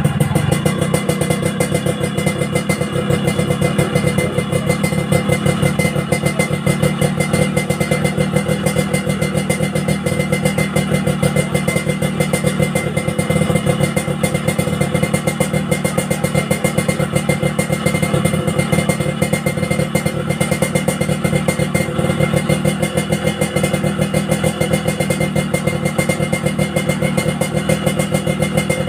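An engine running steadily at an even speed, with a fast, regular beat.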